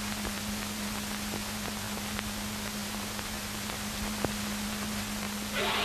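Steady hiss and a low mains-type hum from an old film soundtrack, with a few faint clicks and crackles. Near the end a louder rush of noise comes in.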